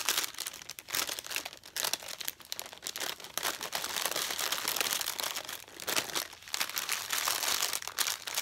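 Plastic packaging of a diamond painting kit crinkling and rustling as it is handled, in an irregular run of crackles.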